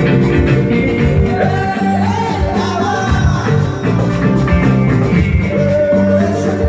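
Live band playing: electric guitars, congas and drum kit over a steady bass line, with singing.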